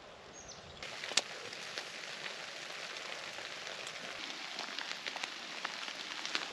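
Rain pattering on a tarp shelter: a steady hiss, full of sharp drip ticks, that starts abruptly about a second in, with one louder tick just after.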